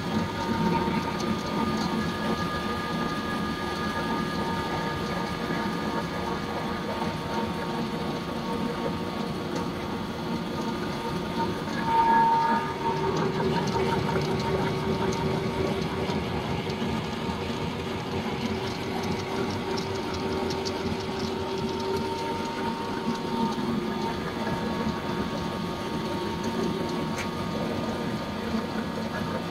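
Electric feed pellet mill and its feed machinery running steadily: a continuous mechanical clatter with a few held whining tones. There is a brief louder burst about twelve seconds in, after which a lower hum comes up.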